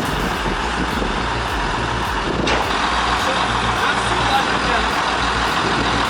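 Bulldozer's diesel engine running steadily under load, with a faint regular ticking about twice a second.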